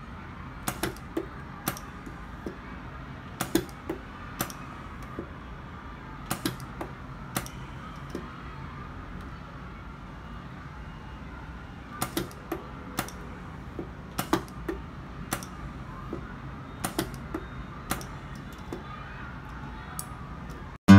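Homemade supercapacitor battery spot welder with a pneumatic-cylinder electrode head welding nickel strip onto battery cells: a series of sharp snaps at irregular intervals, often in quick pairs or threes. A steady low hum runs underneath.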